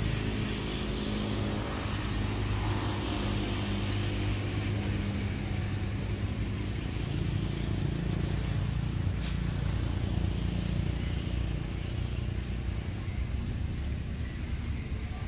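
A motor vehicle engine running, a steady low drone.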